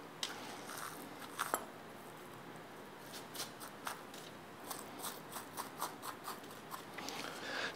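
Metal fork scraping strands out of a cooked spaghetti squash half, the tines raking along the flesh against the shell. Faint, short scrapes, a few at first, then coming quickly one after another in the second half.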